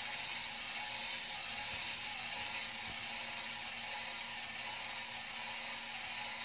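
ServoCity 116 rpm gear motor on a 2S LiPo running steadily, driving the dump-bed lift of a Tamiya King Hauler RC dump truck: an even mechanical whir with gear noise and a steady low hum.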